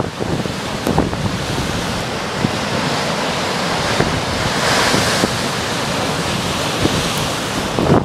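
Heavy storm waves breaking and washing over a rocky lakeshore: a steady rush of surf that swells loudest about five seconds in. Wind buffets the microphone with a low rumble.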